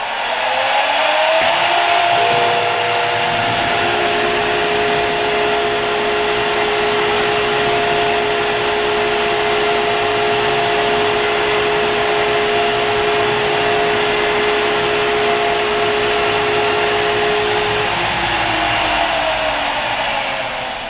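CNC router spindle with a 2-flute 20 mm facing end mill spinning up to 20,000 RPM with a rising whine, then running at a steady high pitch while it faces an aluminum block at 150 inches per minute and 15 thou depth of cut. A second, lower tone sounds under the whine from about two seconds in until a few seconds before the end, and the whine falls away as the spindle winds down near the end.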